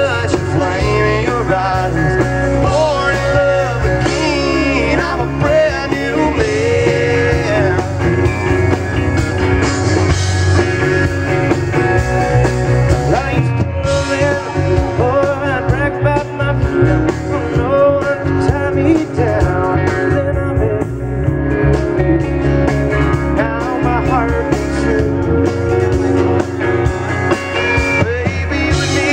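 A live country-rock band playing loudly and steadily: acoustic and electric guitars, bass guitar and drum kit.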